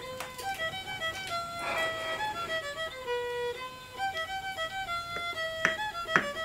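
Solo fiddle playing a lively melody of short notes. Near the end there are a few sharp crackles as a knife cuts through a baked pie crust.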